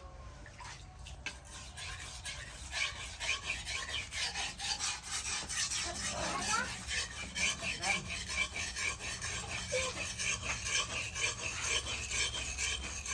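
Hand abrasive rasping strokes on the knife's steel or handle, repeated about twice a second, starting a couple of seconds in.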